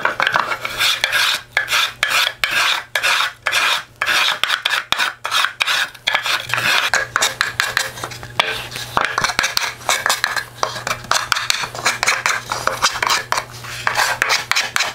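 Small 3-inch trimming plane shaving the edges of a wooden toolbox in quick repeated strokes, chamfering them and rounding them over slightly.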